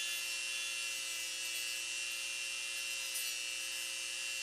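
Dremel rotary tool running at a steady high speed with an even whine, carving vent stubs and flashing off a clear resin casting that is still soft and rubbery.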